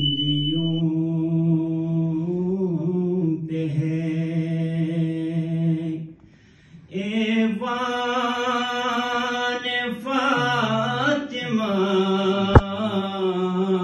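A man's solo voice chanting a manqabat (devotional praise poem) unaccompanied into a microphone, holding long, ornamented notes. He pauses briefly about six seconds in, and a single sharp click sounds near the end.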